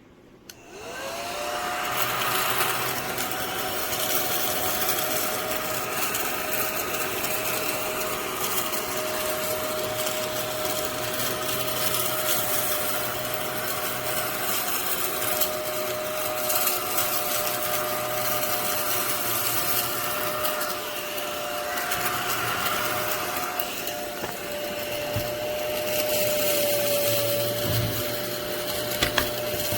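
Portable mini desktop crumb vacuum switched on, its small motor spinning up within the first second to a steady high whine with air rushing. It runs on with the pitch shifting slightly now and then, with a few sharp clicks near the end.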